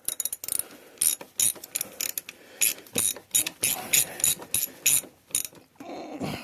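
Ratchet wrench clicking in short strokes, about three or four clicks a second, as a 10 mm bolt on a ground connection is tightened back down. The clicking stops about five and a half seconds in.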